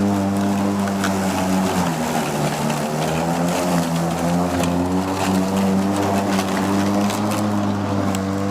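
Echo 58-volt cordless electric lawn mower running while cutting grass: a steady motor and blade hum that drops in pitch about two seconds in, then wavers up and down.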